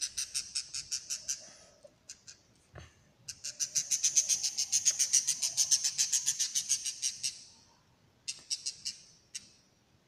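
Lovebird chirping in rapid runs of short, high-pitched chirps, about five or six a second, with brief pauses between runs; the longest run is in the middle.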